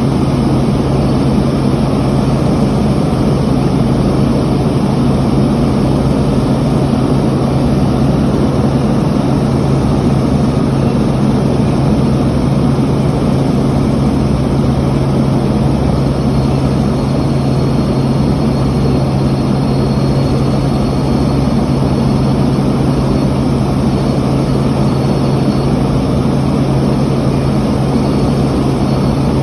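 Helicopter in flight heard from inside the cabin: steady, loud engine and rotor noise with a constant low hum.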